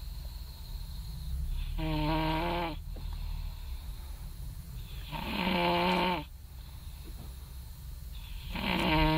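A person snoring: three long snores, each with a clear droning pitch, about three and a half seconds apart, over a steady low hum.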